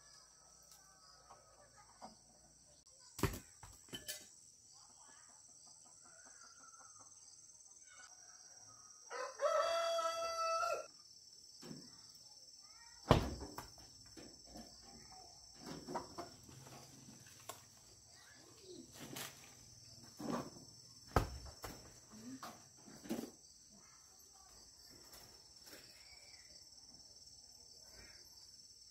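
A rooster crows once, about ten seconds in, a single held call of about a second and a half, over a steady high insect drone. A few sharp knocks fall here and there.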